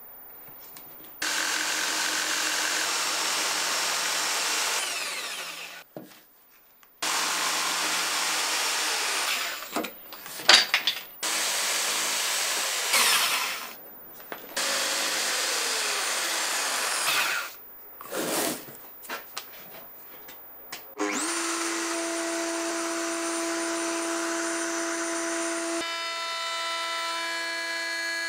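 A Bosch jigsaw cutting plywood in several runs of a few seconds each, with short pauses between them, roughing out slot cutouts. Then, about three-quarters of the way through, a router spins up and runs with a steady whine, fitted with a flush-trim bit to trace the template.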